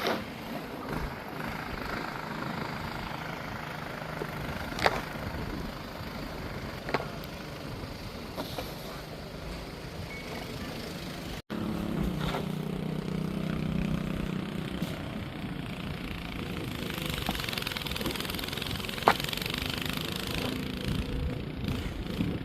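An engine running steadily under a noisy wash, with a few sharp clicks and a brief dropout about halfway through.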